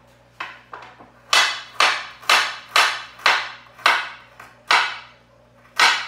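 Kitchen knife chopping through produce onto a cutting board, about ten sharp chops at roughly two a second, with a short pause before a last chop near the end.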